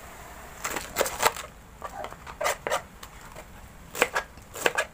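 Kitchen knife slicing a head of cabbage on a plastic cutting board: a string of short, sharp cuts at an uneven pace, some in quick pairs.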